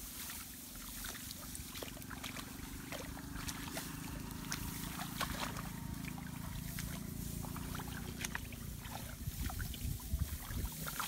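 Rice plants rustling and hands sloshing and groping through shallow paddy water and mud, with many small clicks and snaps. A low steady hum runs underneath until about eight seconds in.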